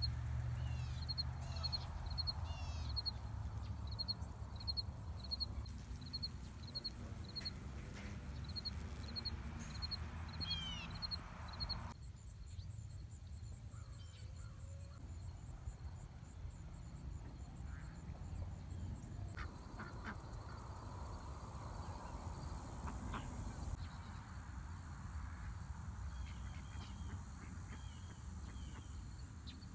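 Outdoor garden ambience: birds calling, with a repeated high chirp about twice a second and some downward-sweeping calls in the first part, over a steady low rumble. The sound changes abruptly at about 12 and 20 seconds in.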